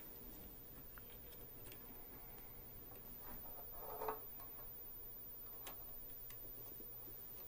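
Faint, scattered light clicks and taps from handling small parts during hands-on soldering work, with one short, louder rustle about four seconds in.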